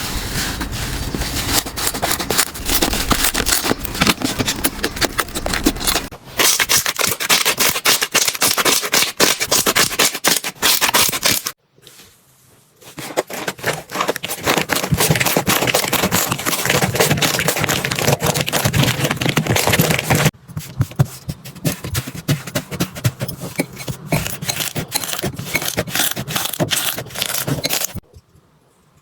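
Slime being squeezed and stretched by hand, giving dense crackling and popping clicks. The texture changes several times, with a brief silence about twelve seconds in.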